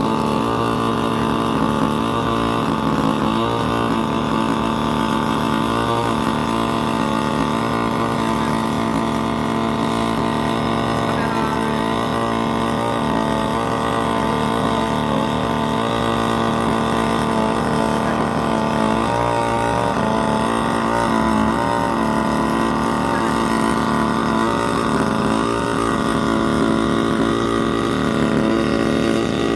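Hybrid gasoline-engine multirotor drone in flight: its onboard gasoline engine and rotors run with a steady, even pitch.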